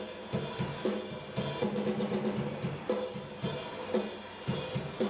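Drum kit played hard in a steady beat on kick drum, snare and hi-hat, the drums ringing on after each hit.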